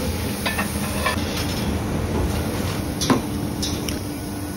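Metal tongs clinking against a charcoal grill's steel grate as a live lobster is held down, a few sharp clinks over a steady hum, the loudest about three seconds in.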